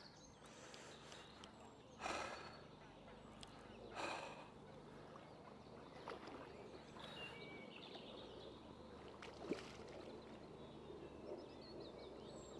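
Quiet outdoor ambience with two short, breath-like sounds about two seconds apart near the start and a few faint high chirps later on.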